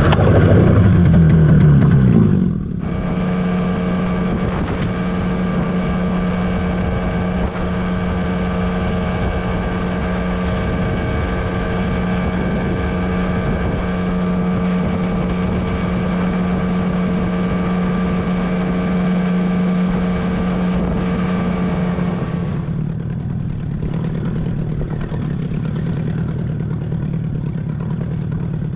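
Outboard motor on a fishing boat, loud as it opens up in the first couple of seconds, then running steady at speed. About 22 seconds in, its higher tones drop away and it carries on at a lower, steadier hum as it eases off.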